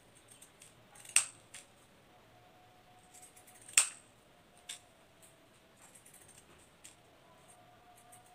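Small scissors snipping out a cut-out fork shape, heard as a few sharp clicks of the blades closing, two of them louder than the rest, about a second and nearly four seconds in.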